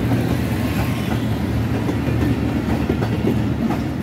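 Diesel-hauled passenger train passing close by: a steady low engine drone under the rumble of the coaches, with wheels clicking over the rail joints.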